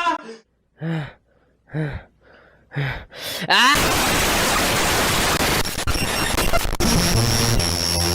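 Three short groaning gasps about a second apart, then a quick rising sweep and a loud burst of hissing static that runs on for about five seconds, with a low hum entering near the end.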